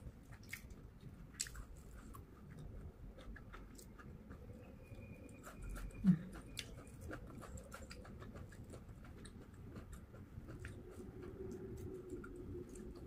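Close-up chewing of a mouthful of food: many small wet clicks and smacks of the mouth. About six seconds in there is a brief low throaty sound, the loudest moment.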